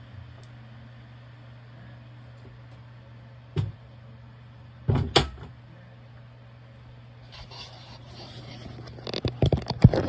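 A closet door swinging shut under a Lawrence Hardware door closer: a click about three and a half seconds in, then the door knocks closed against the frame about five seconds in. Near the end come a run of irregular clicks and rustles, over a steady low hum.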